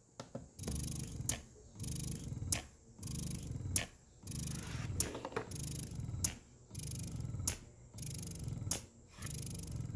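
Spectra S2 electric breast pump running, its motor humming in a steady rhythm of short strokes a little under once a second apart, each stroke ending in a sharp click.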